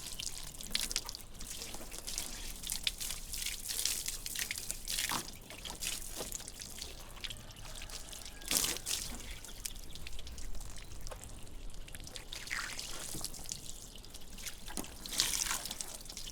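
Close-up ASMR handling of a Lexus LX450D: irregular soft taps, clicks and scratching, with a few sharper clicks about 5, 8 and 15 seconds in.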